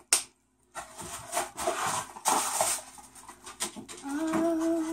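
A sharp click, then rustling and crinkling of beauty-box packaging being handled as items are taken out; near the end a woman hums one short note.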